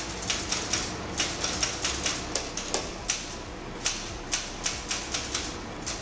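Typewriter keys clacking as someone types, sharp uneven strikes about three or four a second.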